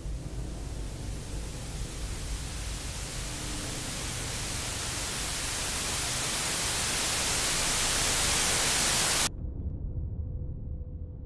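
Television static hiss, swelling steadily louder for about nine seconds, then cutting off abruptly and leaving a low drone with a steady held tone.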